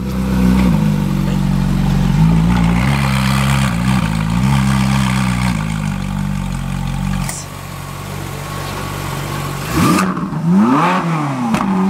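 Ferrari 458 Italia's 4.5-litre V8 running at a steady idle with slight wobbles in speed, then dropping quieter about seven seconds in. Near the end it is revved in sharp blips, the pitch shooting up and falling back each time.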